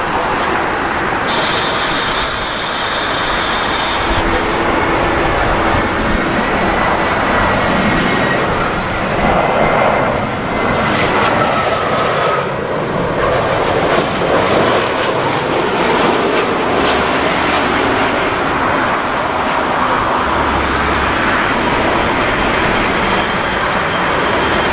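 Airbus A320 jet engines on final approach and landing: a steady jet roar with a faint whine that slides down in pitch midway through.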